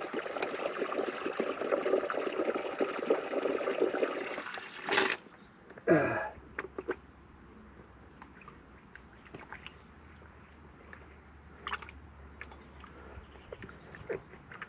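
Water running and splashing from a broken water pipe, cut off suddenly about five seconds in with a couple of sharp knocks, followed by a few faint clicks of handling pipe fittings.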